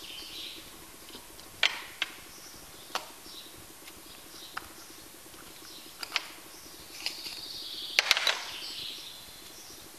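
Scattered light clicks and knocks of small plastic tubs and lids being handled on a metal workbench, with a quick cluster of clicks about eight seconds in, over a faint steady hum.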